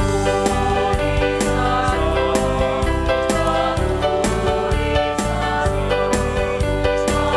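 Christian worship music with singing over a steady beat and heavy bass.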